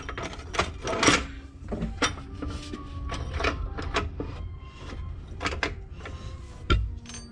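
Metal clinks and knocks as the lower section of a Rolls-Royce Phantom I bell housing is handled and worked into place under the clutch, densest in the first couple of seconds, with one heavier thump near the end.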